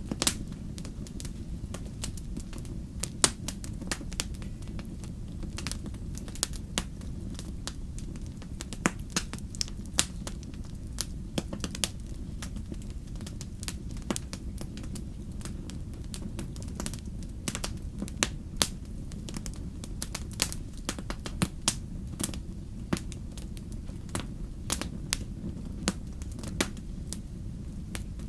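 Wood fire burning in a fireplace: a steady low rumble of the flames with frequent sharp, irregular crackles and pops of the burning logs.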